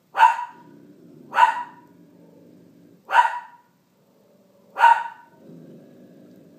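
A Bernedoodle puppy barking four times, short sharp barks about a second and a half apart.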